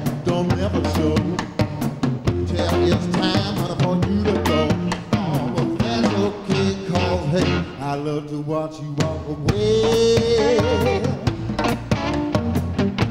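Electric blues band playing live: drum kit, bass and electric guitar keep a steady groove while a man sings lead into a hand-held microphone, holding one long wavering note about ten seconds in.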